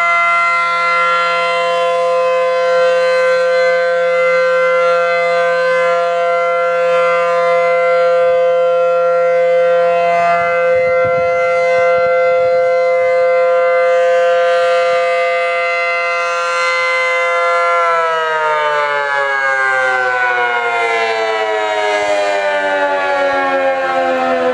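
ACA P-15 outdoor warning siren sounding a steady, loud alert tone at full speed, then about three-quarters of the way through it begins to wind down, its pitch falling steadily.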